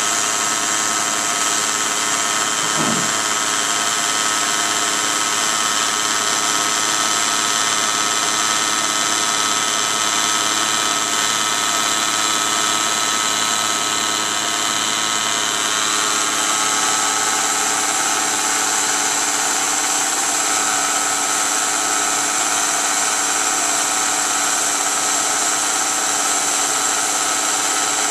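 Bridgeport milling machine running steadily, its cutter taking a very light cut that shaves about five thousandths off the side face of a connecting rod as the rotary table turns the rod. It makes an even, multi-toned whine, with a short rising sound about three seconds in.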